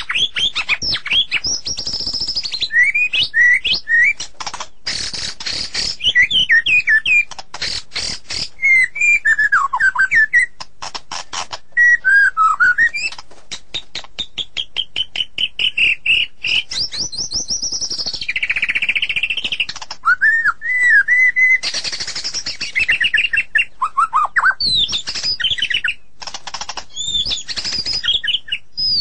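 White-rumped shama (murai batu) singing a long, unbroken song: varied clear whistles and glides, mixed with fast runs of rapidly repeated notes.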